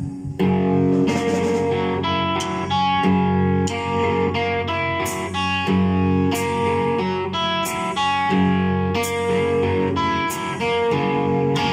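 A live band playing loudly: guitar chords ringing and changing every second or so over drums, with sharp cymbal and drum hits.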